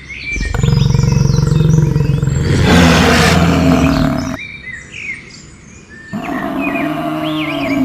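A large animal calling twice: a long, low call of several seconds, then a second one starting about six seconds in. Birds chirp high above throughout.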